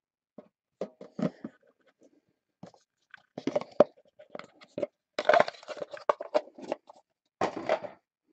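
Trading cards and their cardboard packaging handled by hand: irregular rustling, sliding and tapping in scattered short bursts, busiest in the second half.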